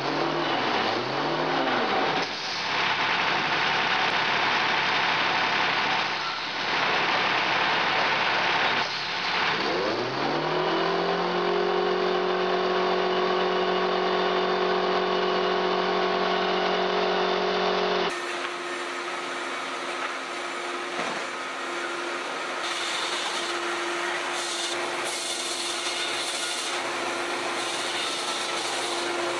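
Diesel engine of a heavy off-road logging truck running as it pulls its log trailer, its pitch rising about ten seconds in and then holding steady. About eighteen seconds in the sound changes suddenly to a machine handling logs: a steady hum with wood rubbing and scraping.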